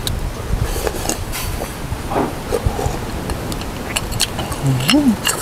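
Noodle soup drunk straight from the bowl: soft sips and swallows over a steady low rumble, then a short appreciative hummed 'mm' about five seconds in.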